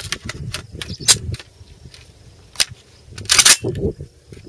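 AKM rifle being loaded: a magazine rocked into the magazine well with handling clicks and a sharp lock about a second in, then a loud metallic clack-clack near the end as the charging handle is pulled back and let slam forward to chamber a round.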